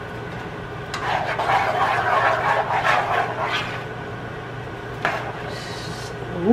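Plastic spoon stirring and scraping a thick, melting cheese-and-milk mixture in a stainless steel pot: rough rasping strokes, busiest from about one to nearly four seconds in, then quieter, with one sharp click about five seconds in. A steady low hum runs underneath.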